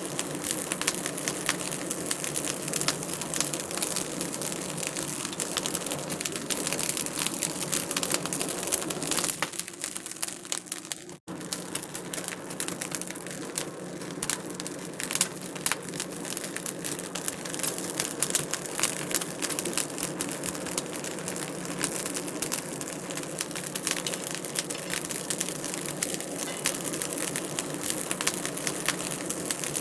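Wood fire burning in a fireplace, crackling steadily with many small pops over a soft rushing bed. The sound drops out for an instant about eleven seconds in.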